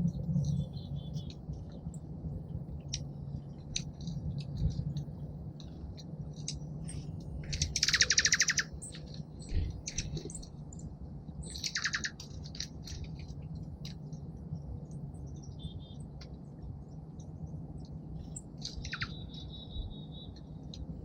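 Small songbirds calling at a seed feeder. Scattered short high chirps run throughout. A loud rapid trill comes about eight seconds in, a shorter trill near twelve seconds, and near the end a falling note that settles into a brief held whistle. A steady low hum runs underneath.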